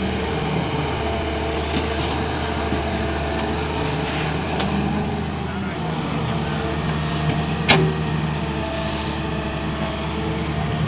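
Diesel engine of a Volvo EW130 wheeled excavator running steadily under working load while it digs soil. A light metallic click comes a little under halfway through, and a sharp, louder clank about two-thirds of the way through.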